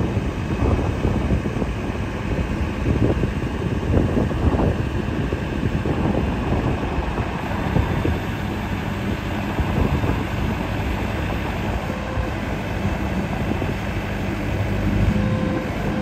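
New Holland B110B loader backhoe's diesel engine idling steadily.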